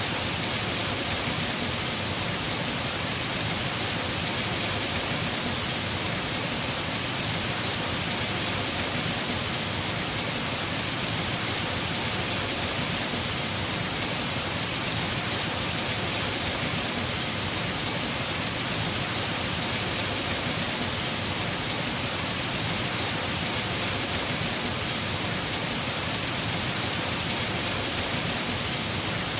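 Heavy rain falling on a house roof, a dense, steady hiss with no separate drops or thunder standing out.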